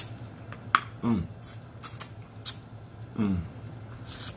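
Close-up eating sounds of blue crab: sharp, scattered clicks and smacks as the shell is picked and sucked at. Two short falling voice sounds come about one and three seconds in.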